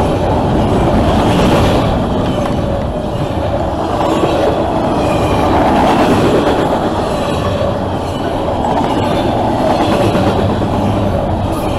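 Double-stack intermodal freight cars rolling past on the nearest track: a steady rumble and rattle of steel wheels on the rails, with one steady tone running through it.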